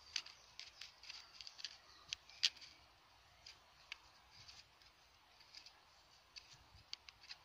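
A gloved hand and a pinpointer probing loose soil and dry leaf litter in a dug hole: faint, irregular crackles and scrapes, several a second, with one sharper crackle about two and a half seconds in.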